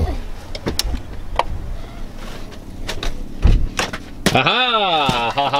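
Knocks, clicks and bumps of a child clambering into a minivan's back seat, with a dull thump about three and a half seconds in. Near the end a loud wordless exclamation follows, its pitch rising and falling twice.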